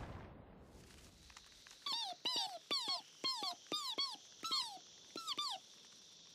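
Cartoon baby pigeon fiends peeping: about ten short chirps, each falling in pitch, in a quick string starting about two seconds in. The tail of a crash fades out at the very start.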